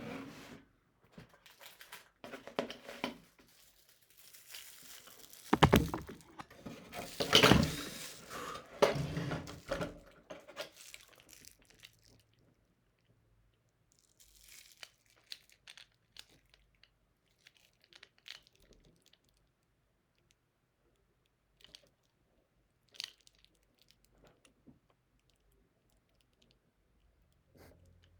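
Packaging being opened and handled by hand: rustling, crinkling and tearing, loudest for several seconds in the first third, then sparse small clicks and taps.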